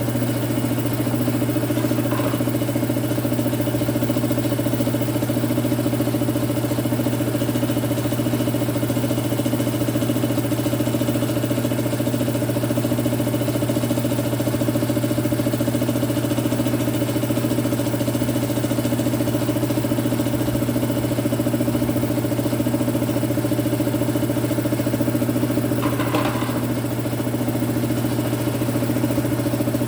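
Belt-driven air compressor running steadily with a constant hum. With a properly tensioned belt, the pump turns normally: a too-long, slack belt has been replaced with a shorter one.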